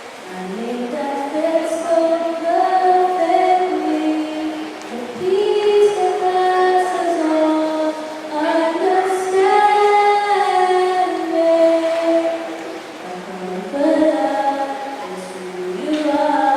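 A woman singing a slow solo melody in long held notes that glide from pitch to pitch.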